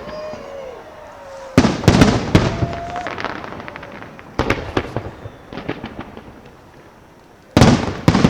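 Fireworks going off in volleys of sharp bangs and crackles: a loud cluster about a second and a half in, a smaller one midway, and another loud cluster near the end, with rumbling tails between.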